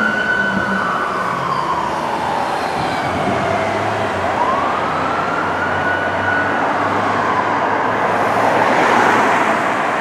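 Fire engine siren wailing, its pitch rising quickly, holding, then sliding slowly down, twice. Under it runs a steady rumble of engine and road noise that swells near the end.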